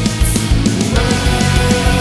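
Black metal music: distorted guitars and sustained chords over fast, dense drumming.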